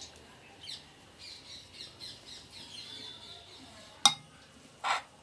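Birds chirping in the background, many short high calls falling in pitch, one after another. About four seconds in, a metal spoon knocks sharply against the clay bowl of potato filling, followed a moment later by a short scrape.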